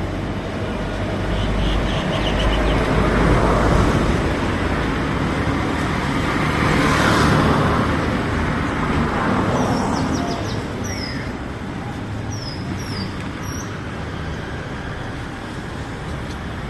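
Street traffic: motor vehicles passing by, the noise swelling about three seconds in and again about seven seconds in, with a few faint high chirps later on.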